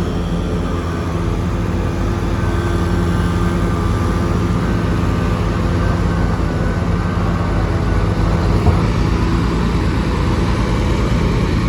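A steady engine drone: an even low hum with a few constant tones that neither rise nor fall, typical of heavy vehicles or machinery working on the road.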